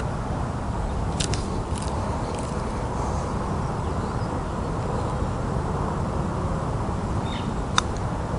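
Putter face striking golf balls in a short putting drill: a sharp click about a second in and another near the end, with a couple of fainter clicks just after the first. Under them runs a steady low outdoor background rumble.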